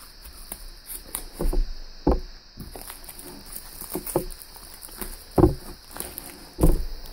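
Scissors snipping into a paper and plastic wrapper, then the wrapper crinkling and tearing as hands pull it open. Several dull knocks come at irregular moments, the strongest near the middle and near the end.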